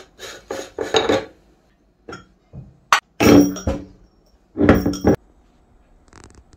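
Metal parts of a manual meat grinder clinking and scraping against a glass plate and each other as the grinder is taken apart. A series of clinks and clatters with a brief ring, the loudest about three and five seconds in.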